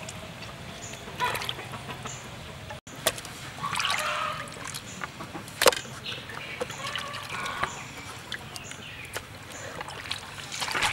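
Water sloshing and trickling as raw chicken pieces are handled and washed in a basin of water, with scattered small splashes and a sharper splash a little past the middle.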